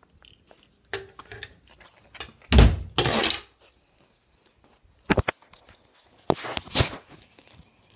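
Handling noise from a handheld phone carried against a shirt: a loud thud with rustling about two and a half seconds in, then sharper knocks around five seconds and again near six and a half.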